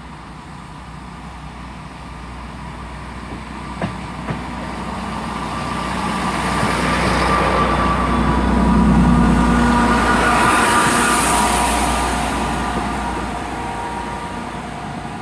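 Class 165 Turbo diesel multiple unit departing: its diesel engines grow steadily louder as it pulls away, peak about nine seconds in, then fade. There are two short clicks around four seconds in.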